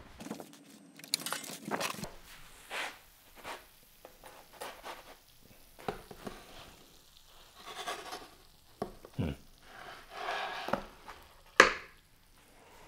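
Scattered clicks and rustles of things being handled, then a sharp wooden knock near the end as a pizza on a wooden peel is set down on a wooden cutting board.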